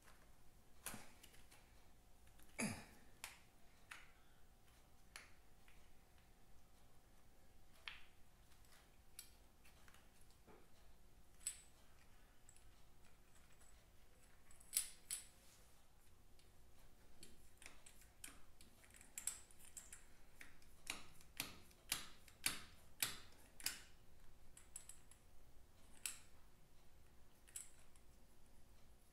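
Quiet, scattered metal clicks and taps from hands working the pushrod tubes and cylinder heads of a Vincent V-twin engine, with a quick run of sharper clicks about three-quarters of the way through.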